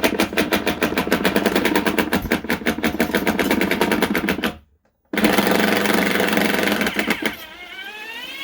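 Cordless power drill-driver running in two bursts with a rapid, even clatter of about ten clicks a second, driving out bed-frame screws. It stops briefly about halfway through, then runs again and trails off near the end.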